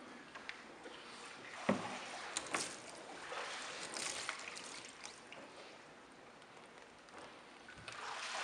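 Water in a church baptismal tank sloshing and dripping as people wade through it and climb out over the rim, with a thump about two seconds in.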